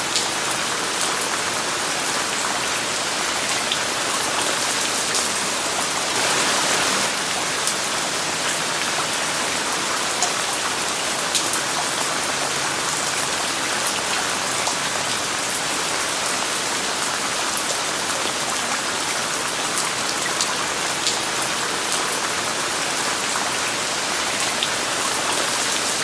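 Steady rain falling, blended with white noise, with scattered sharp drop ticks through it. A brief louder swell comes about six seconds in.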